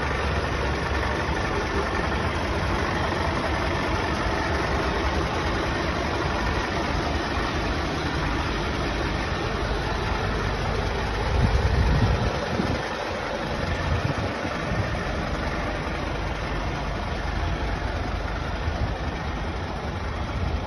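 Diesel engine idling steadily, with wind buffeting the microphone about halfway through.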